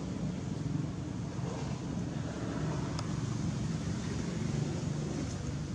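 A steady low mechanical drone, unchanged throughout, with a faint click about halfway through.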